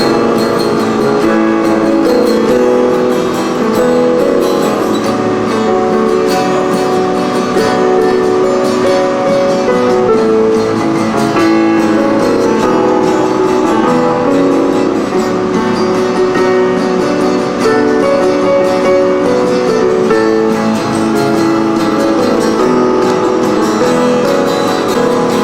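Instrumental background music led by an acoustic guitar, playing a steady run of changing notes at an even level.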